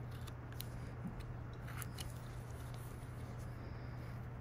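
Carving knife cutting shavings from a wooden lure blank: a few faint, crisp scrapes and clicks as the blade bites the wood, over a steady low hum.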